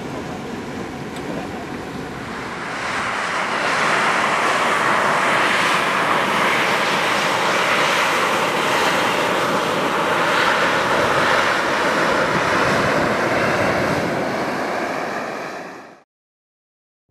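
Volcanic fumarole vent hissing steam: a steady, loud hiss that swells about three seconds in and cuts off suddenly near the end.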